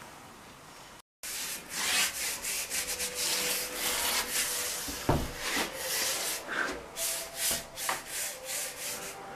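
A hand rubbing back and forth over a wooden door frame: dry, scratchy strokes, roughly two a second, starting about a second in, with one dull knock about five seconds in.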